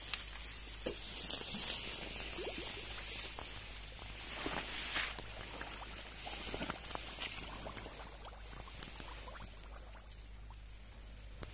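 Footsteps through dry grass and reeds: rustling that swells and fades, with many small snaps and crackles of stems and twigs, over a steady high hiss.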